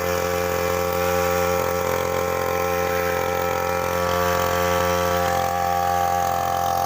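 Small engine of a grass-cutting machine running steadily, with a slight change in pitch about five seconds in.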